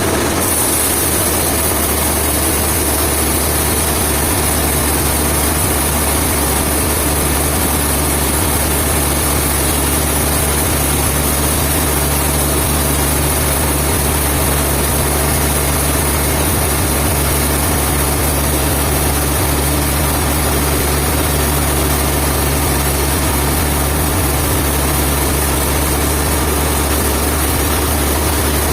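Heavy machinery engine running steadily at an even speed, with a deep low hum under a wide noisy wash.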